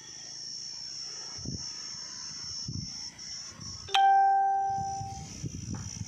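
A single bell-like ding about four seconds in, ringing out and fading over about a second and a half. Behind it runs a steady high-pitched drone of insects in the field.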